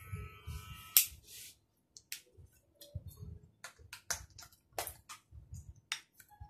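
Barber's tools clicking and snipping close to the microphone: a series of sharp, irregular clicks, the loudest about a second in, with soft low handling thumps between them.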